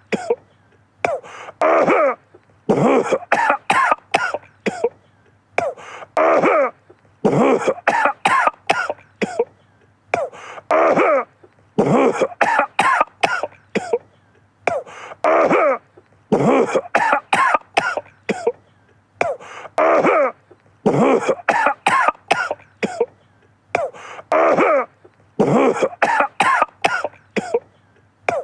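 A man coughing over and over, in fits of several quick coughs, with a new fit every second or two.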